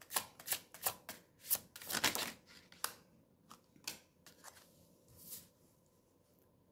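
A tarot deck being shuffled hand over hand, with quick slapping strokes about three a second for the first three seconds. Then a few softer taps as cards are dealt onto the table, dying away near the end.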